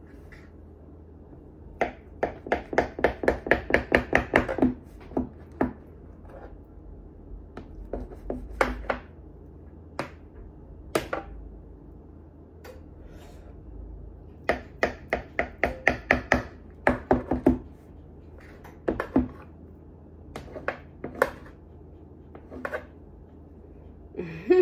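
Knife cutting through cinnamon-roll and cookie dough in a metal baking pan, the blade tapping and scraping on the pan's bottom. It comes in two quick runs of sharp taps, about four or five a second, with scattered single taps between them.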